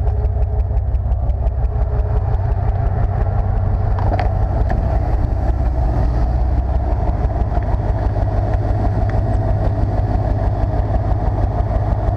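1995 Chevy C/K 1500 pickup's engine idling steadily, with a single click about four seconds in.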